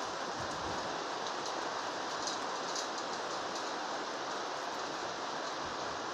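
Storm rain falling steadily, with scattered faint ticks of drops striking nearby.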